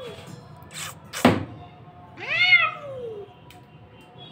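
Kitten meowing: one loud meow that rises and then falls, about two seconds in, with the tail of another fading at the start and a new one beginning at the very end. A sharp knock about a second in is the loudest sound.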